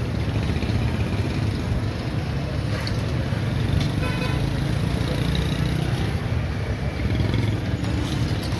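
Steady street noise with road traffic running, a continuous low rumble.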